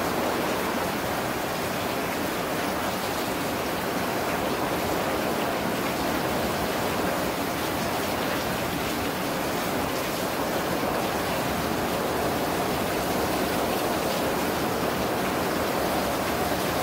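Heavy storm rain pouring down, a steady, even hiss with no breaks.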